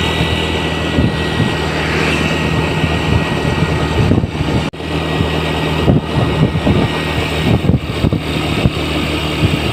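A vehicle engine running steadily, with scattered knocks and a brief dropout about halfway through.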